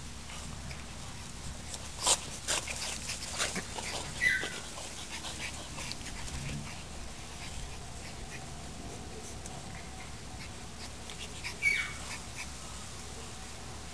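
French bulldog puppies at play, giving two short high yelps that fall in pitch: one about four seconds in and one near the end. A few short sharp yips and snaps come in the first few seconds.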